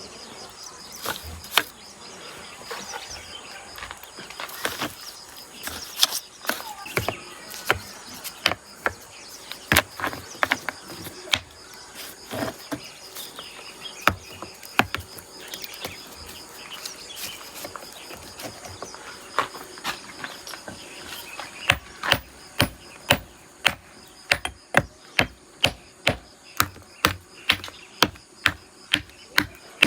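Masonry work with a trowel on brick and mortar: scattered sharp taps and knocks, settling about 22 seconds in into steady tapping about twice a second.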